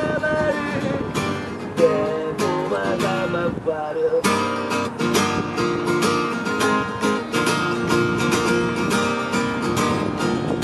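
Music: strummed acoustic guitar.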